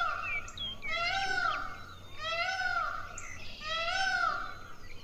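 Indian peafowl (peacock) calling over and over, about one call every second and a half, each call rising and then falling in pitch with a harsh, nasal edge.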